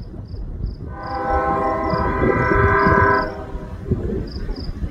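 Diesel locomotive air horn, the Norfolk Southern ES44DC leading the train, sounding one long steady chord that starts about a second in and cuts off about two seconds later. Insects chirp in an even pulse throughout.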